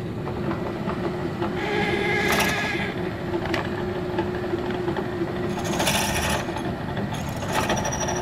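Palmgren bench drill press running with a long 3/16-inch bit grinding its way down into a stone block under water coolant, drilling a pipe's drawhole. Steady motor hum with a gritty cutting sound, turning harsher for a moment about two seconds in and again about six seconds in.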